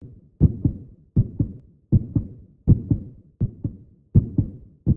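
Heartbeat sound effect: steady lub-dub double thumps, a strong beat followed quickly by a softer one, repeating about every three-quarters of a second.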